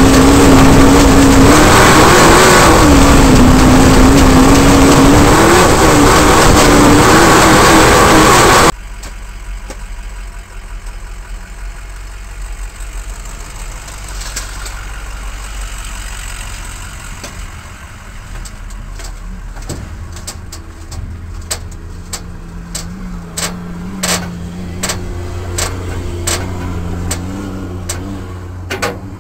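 Off-road race vehicle's engine running hard with loud road and wind noise inside the caged cab, its pitch rising and falling. About nine seconds in it cuts abruptly to a much quieter low engine running at idle, with scattered clicks and knocks.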